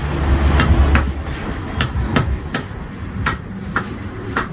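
Heavy butcher's cleaver chopping goat ribs on a wooden chopping block: about eight sharp chops at uneven spacing.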